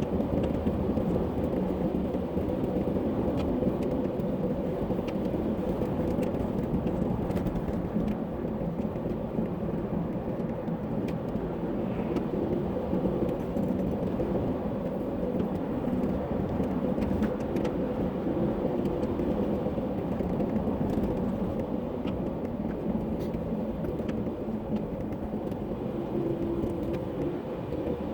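Steady car cabin noise from the engine and tyres rolling on a snow-covered road, with occasional faint ticks.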